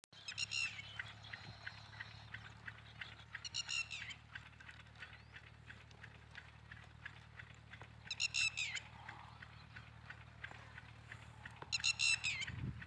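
Four short, high-pitched animal calls, about four seconds apart, each falling in pitch at its end, over a rapid ticking and a steady low hum.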